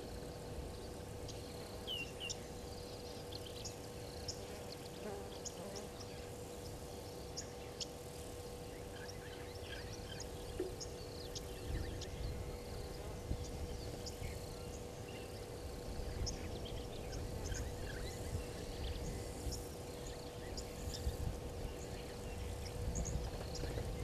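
Outdoor bush ambience: scattered short, high bird chirps and calls over a steady low hum, with a low rumble that grows stronger in the second half.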